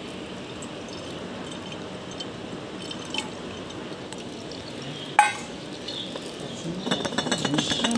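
Lemon juice pouring steadily into a glass bottle. There is one sharp glass clink about five seconds in, and a quick run of clinks and taps near the end.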